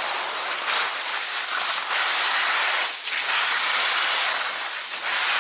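Skis sliding downhill on a groomed snow slope: a steady scraping hiss of the skis on the snow, easing briefly about three seconds in and again near the end.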